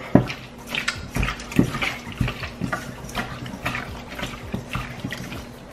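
Bare hands mixing seasoned raw chicken breast strips in a stainless steel bowl: irregular wet squelching and squishing as the meat is worked.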